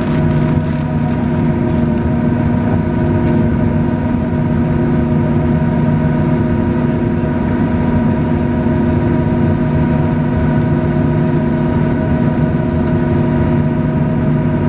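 Steady cabin noise inside a Boeing 737-800 before takeoff: a constant drone with several steady humming tones over an even rush of air.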